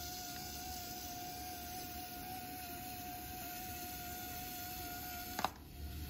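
Faint, steady high-pitched electronic whine over hiss, with a sharp click about five and a half seconds in, after which the whine drops out briefly and returns.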